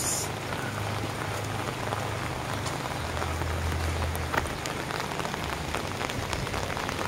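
Steady rain falling on an open umbrella overhead, a dense even hiss studded with many small drop ticks. A low hum joins it from about a second in until about four and a half seconds.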